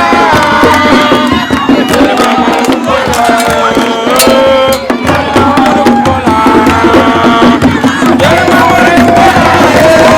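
Music: a held, sliding melody over fast hand-drum percussion.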